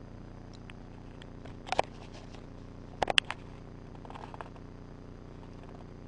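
Steady low hum of recording noise with a few sharp clicks and rustles of handling: a pair about two seconds in, a louder cluster about three seconds in, and softer ones a second later.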